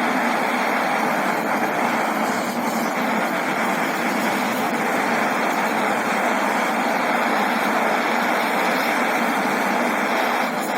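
Portable gas-canister torch burning with a steady, even rushing noise while heating steel for brazing with brass rod and borax.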